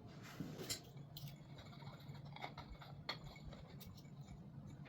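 Faint scattered clicks and light scrapes of small things being handled, over a low steady hum.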